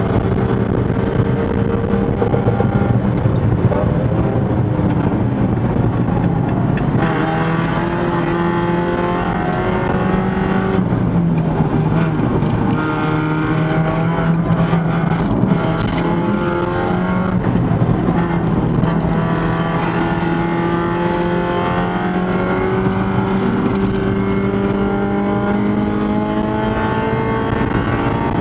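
Spec Miata's four-cylinder race engine heard from inside the cockpit, running hard under load. Its note holds fairly level for the first few seconds, then climbs in pitch in long rises, broken twice by short breaks.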